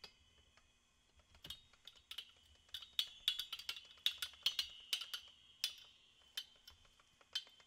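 Irregular sharp metallic clicks and ticks with a faint ring, thickest in the middle, as a threaded rod is turned by hand to press down on a small electric motor assembly resting on steel plates.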